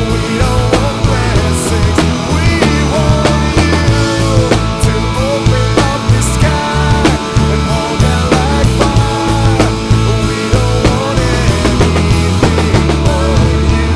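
Full-band rock music with steady drum beats under a bending melodic lead line, without singing.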